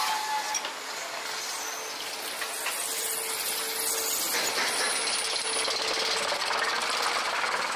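Roller coaster train running on its track: a steady, dense rattle mixed with rushing noise.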